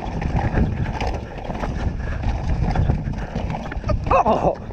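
Full-suspension mountain bike (2018 Canyon Torque) riding fast down a rough trail: a steady low rumble with irregular clattering and knocking from the tyres, drivetrain and suspension over rocks and roots. Near the end a short wavering squeal cuts through.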